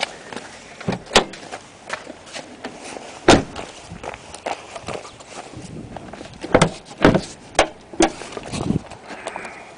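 A series of irregular knocks and thumps, with a loud one about three seconds in and a cluster of them around the seventh and eighth seconds.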